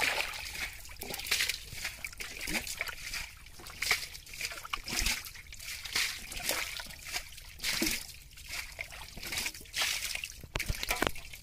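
Muddy water sloshing and splashing as a metal bowl is pushed into shallow mud water and scooped out, in irregular splashes.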